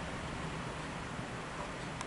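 Steady hiss of heavy rain and gusting wind in a thunderstorm.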